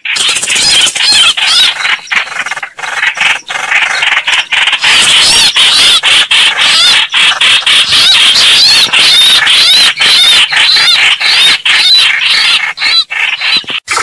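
Coucal (bìm bịp) calls played as a bird-hunting lure recording: a loud, rapid, continuous stream of high-pitched squealing calls with brief breaks.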